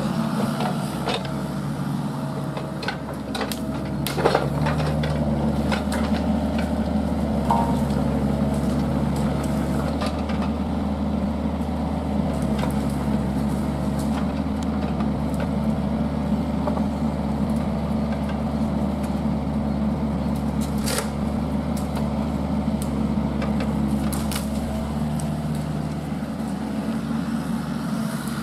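Kubota mini excavator's diesel engine running steadily while its hydraulic tree shear cuts branches, with scattered sharp cracks and snaps of breaking wood, the loudest about four seconds in.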